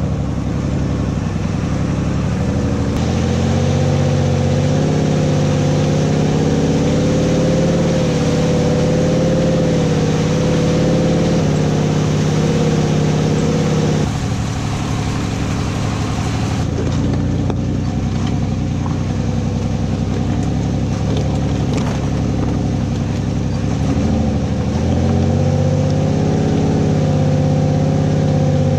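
A 4x4 jeepney's engine running under load over a rough, muddy dirt road, its pitch stepping up and down as it speeds up and slows.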